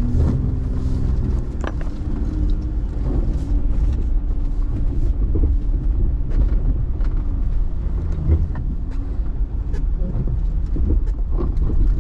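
Off-road vehicle engine running at low speed over a rough trail, its pitch rising and falling as the throttle changes, under steady low rumble with scattered knocks and rattles.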